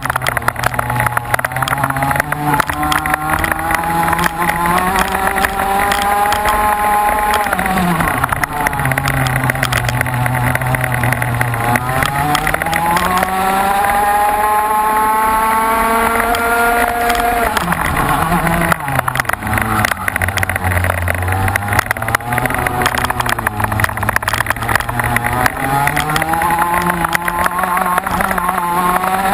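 Race vehicle's engine heard onboard at speed, its note climbing under acceleration, dropping sharply a few times as the driver lifts or shifts, then climbing again. Wind buffets the microphone throughout.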